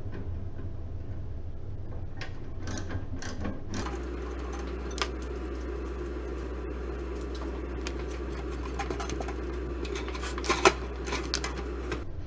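Screws being taken out of a toaster oven's sheet-metal housing: light clicks at first, then a steady mechanical whir from about four seconds in, with small metal clicks and a sharp clink near the end, the loudest sound.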